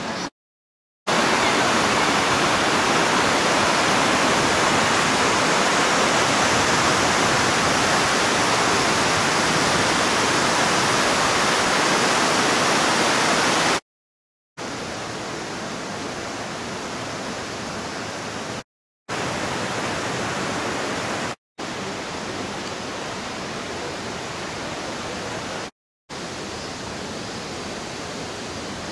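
Steady, even rush of falling water, louder for the first dozen seconds and broken by short silent gaps where the recording cuts between takes.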